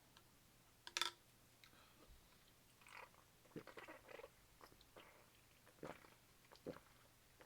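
Quiet gulping and swallowing as someone drinks lemon Ramune soda from its glass marble bottle, with a short sharp sound about a second in.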